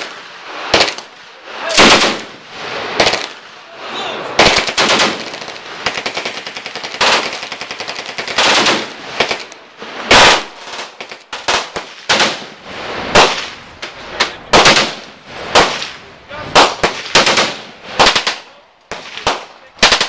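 Browning Automatic Rifle firing short automatic bursts and single shots, each shot loud and sharp with an echo after it.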